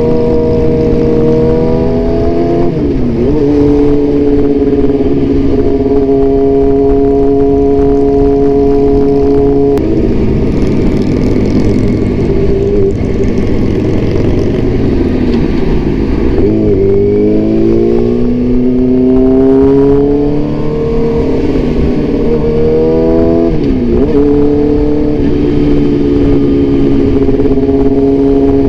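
Motorcycle with an Austin Racing aftermarket exhaust running at highway speed, its note mostly steady. Twice the pitch dips sharply and comes back, and in the middle the engine note climbs steadily as it accelerates.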